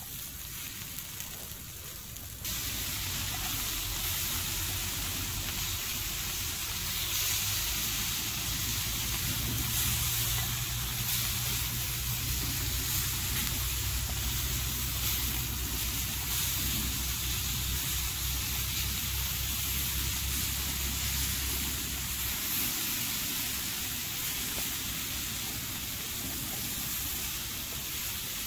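Tiger prawns sizzling on a hot black metal pan over a wood fire, a steady hiss that grows louder a couple of seconds in. A low rumble runs under it until it drops away near the end.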